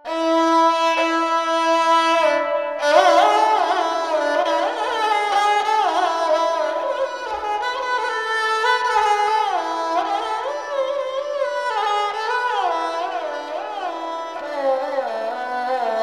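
Solo sarangi, bowed, playing Hindustani-style melody: a held note for about two and a half seconds, then after a brief break a flowing line full of slides between notes, over a steady drone.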